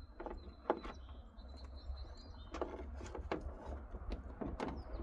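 Scattered light clicks and taps as a rock-light wire is fished through a drilled hole in the truck. A faint, high, wavering bird whistle sounds through the first half, over a steady low rumble.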